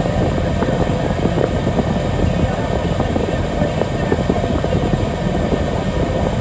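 Steady low engine rumble of a stationary vehicle, heard from inside its cab.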